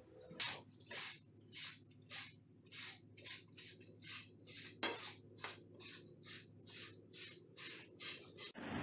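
Rhythmic back-and-forth scraping strokes, about two or three a second, which stop suddenly near the end.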